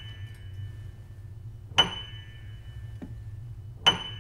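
A high, bell-like metallic chime struck about every two seconds, each strike ringing out slowly before the next, over a low steady hum.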